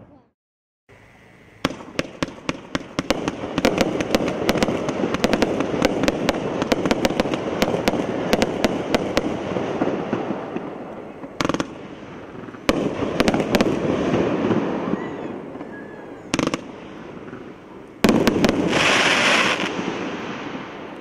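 A 500-gram, 34-shot fan-shaped fireworks cake firing: a rapid string of sharp launch shots starting about a second and a half in, with the aerial bursts rumbling underneath. Later come a few single loud reports and, near the end, a louder, denser burst before it dies away.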